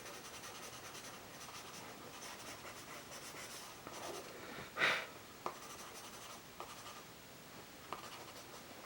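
Pastel pencil scratching softly and steadily across vellum-surface mixed-media paper as dark colour is laid down. There is one louder, brief rasp about five seconds in, and a few light taps after it.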